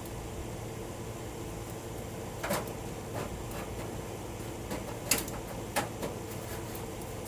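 Workshop handling of tools and small metal parts: a few scattered light knocks and clicks, the sharpest about five seconds in, over a steady hum.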